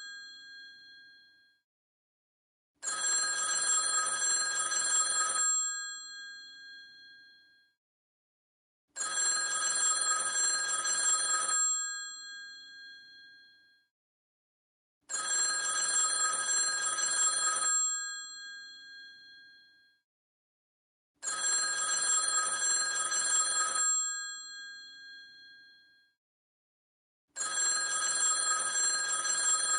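Old telephone's mechanical bell ringing in repeated rings of about two and a half seconds, about six seconds apart, each ring's tone dying away after the striking stops. The first ring is only its fading tail, and a new ring begins about every six seconds after that.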